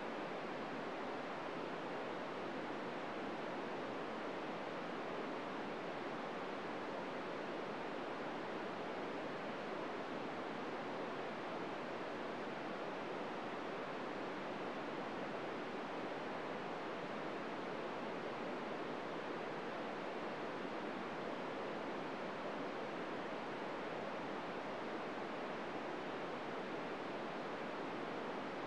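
VHF FM amateur radio receiver on 145.800 MHz putting out steady open-squelch static hiss, with no SSTV tones coming through: no usable signal from the ISS is being received as it sinks toward the horizon.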